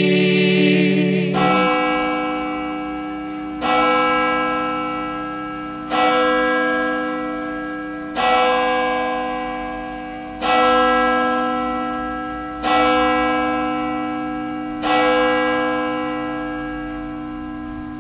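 A vocal quartet's final held chord cuts off about a second in, then a single church bell tolls seven times, about every two seconds, each strike ringing on and slowly fading.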